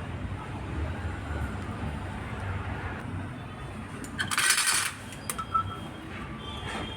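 Soldering on an inverter circuit board: a brief hiss of flux sizzling under the iron about four seconds in, followed by two small clicks, over a low steady background rumble.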